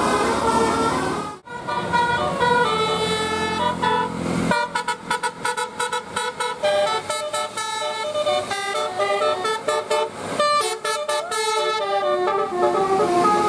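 Bus telolet horn, a multi-tone air horn, playing a melody in stepped notes. It drops out briefly about a second and a half in, then plays a fast run of short notes from about four and a half seconds on.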